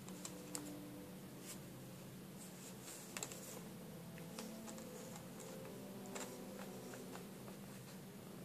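A cat playing in a wicker basket: scattered light clicks and scratches of its paws and claws on the wicker, with a small cluster about three seconds in.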